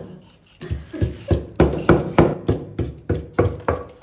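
Rhythmic heavy strikes of food being pounded or chopped on a hard surface, about three a second, starting about half a second in.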